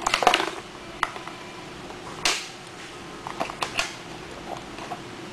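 Light clicks and rattles of plastic parts and a cable being handled at a motorcycle's exhaust valve servo motor: a quick flurry at the start, a single click about a second in, a soft brushing sound after two seconds, and a few quick clicks near four seconds.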